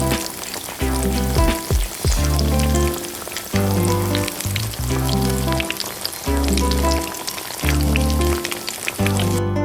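Pork sisig sizzling and crackling in hot fat, over background music with held bass notes that change about once a second.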